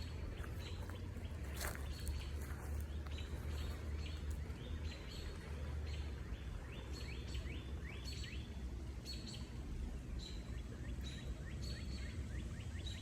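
Small birds chirping repeatedly over the steady low rumble of a fast-rushing river.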